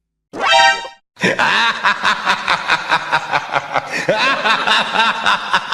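A short rising electronic blip, then a laughing sound effect: a voice cackling in quick, regular pulses, about three a second.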